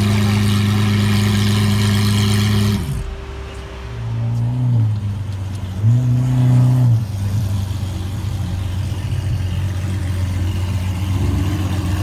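Lamborghini Aventador SVJ's naturally aspirated V12 through a Ryft exhaust, held at a steady, loud note that stops abruptly about three seconds in. Then come two short revs about two seconds apart, each rising and falling back, and after them a steady idle.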